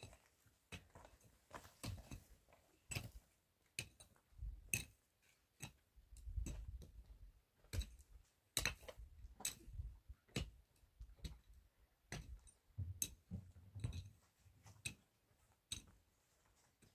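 Footsteps and light knocks on stony ground, scattered and irregular at about one or two a second, with a few dull low thumps in between.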